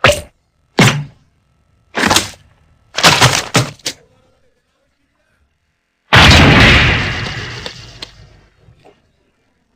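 Cartoon sound effects: a run of short, sharp hits, then a loud crash about six seconds in that dies away over roughly three seconds.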